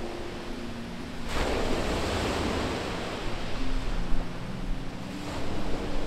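Sea surf breaking on a shingle beach: a large wave crashes and washes in about a second in, and a smaller one near the end.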